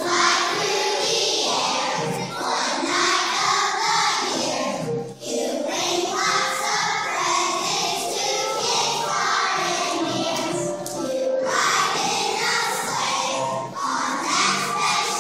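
A group of young children singing together as a choir, with a brief break about five seconds in.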